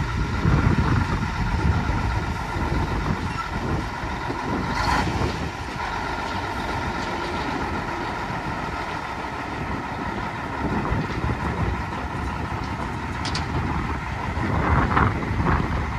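Mack RL600L dump truck's diesel engine idling steadily, with wind buffeting the microphone.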